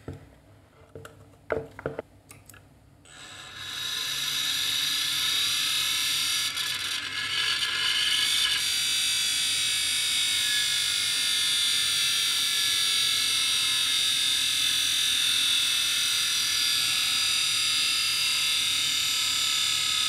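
A Quantum Fireball ST 3.5-inch hard drive being powered up: a few clicks as the power connector is pushed in, then about three seconds in the spindle motor spins up with a rising high-pitched whine that settles into a steady whine of the spinning platters.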